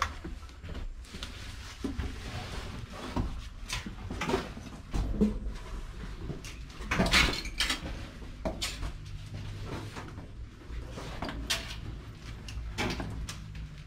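Footsteps with irregular knocks and clunks, someone moving through the dark interior of a scrapped locomotive's body.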